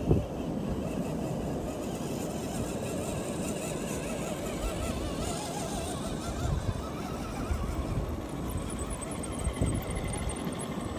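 Electric motors and geared drivetrains of RC crawler trucks whining as they climb through sand, the pitch wavering up and down with the throttle over a steady rumble of wind and sand. A short knock comes right at the start.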